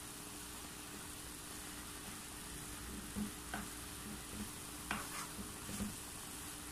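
Wooden spatula stirring ash gourd and grated coconut stir-fry in a non-stick pan over a low flame, with a faint steady sizzle. From about three seconds in come several soft scrapes and knocks of the spatula against the pan, the loudest about five seconds in.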